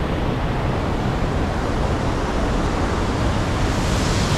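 Steady, loud rush of water falling from a dam, with a low rumble underneath.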